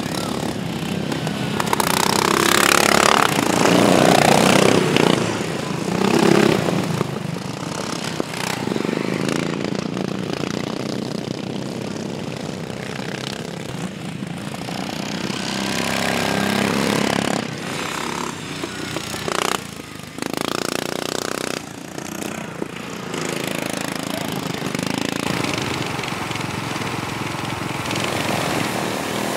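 Racing ride-on lawnmower engines running hard as the mowers race past, in several loud pass-bys that swell and fade, the loudest a few seconds in, with sudden jumps in the sound between shots.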